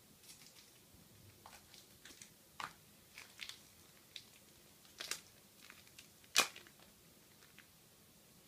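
Hands kneading soft Fimo Kids polymer clay on a glass tabletop: scattered small sticky clicks and crackles, one louder about six seconds in.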